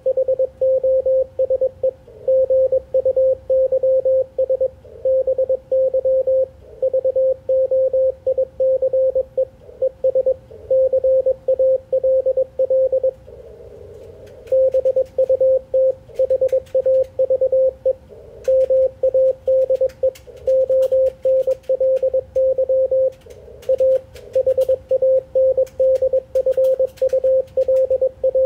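Morse code (CW) on an Icom IC-746PRO HF transceiver tuned to 3.552 MHz in the 80-metre band: a single tone of about 550 Hz keyed in quick dits and dahs, with a pause of about a second near the middle. Faint clicks of static come through in the second half.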